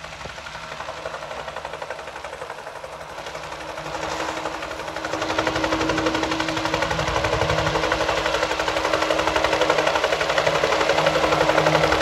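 Bell 47J Ranger piston helicopter coming in to land: the rapid beat of its two-bladed main rotor over the engine, growing steadily louder as it nears, with a steady drone joining about four seconds in.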